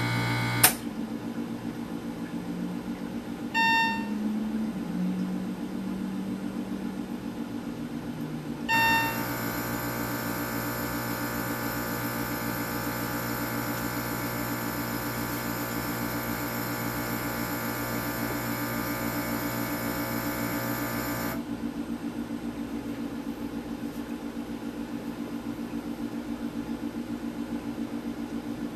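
Intoxilyzer 5000 breathalyzer running its test sequence: a sharp click just under a second in, two short beeps at about 3.5 and 9 seconds, and the instrument's air pump running steadily from the second beep until about 21 seconds in as it purges the sample chamber for the air blank. A steady low electrical buzz runs underneath.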